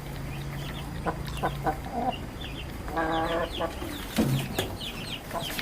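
Chickens clucking, with short high peeps scattered throughout and a longer cluck about three seconds in.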